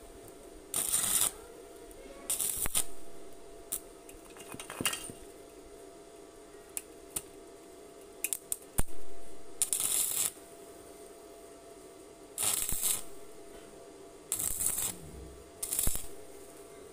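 Stick (arc) welder laying short welds on the joint of a spray-paint-can exhaust muffler: a series of harsh crackling sizzles, each about half a second to a second and a half long, with brief gaps and a few sharp ticks between them, over a steady low hum.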